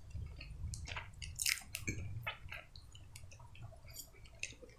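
A person chewing food, with scattered small mouth clicks.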